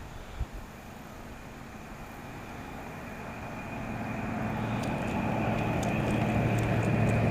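A steady motor hum with a thin high whine, growing steadily louder over several seconds.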